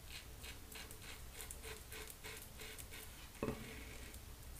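Faint scraping of a Frank Shaving double-edge safety razor cutting lathered stubble on the neck, in short even strokes about four a second, with a soft bump about three and a half seconds in.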